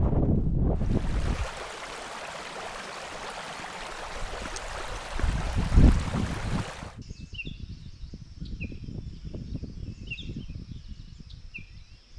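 Wind buffeting the microphone at first, then a shallow stream running over stones, with one loud thump a little before the water cuts off abruptly. After the cut, small birds chirping short repeated notes over faint low knocks.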